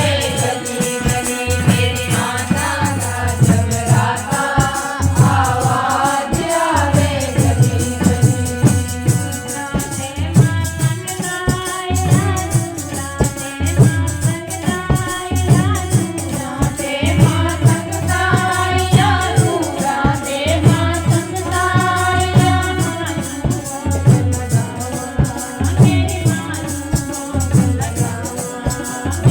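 Hindi devotional bhajan: a voice singing a melody over music with a steady, quick percussion beat.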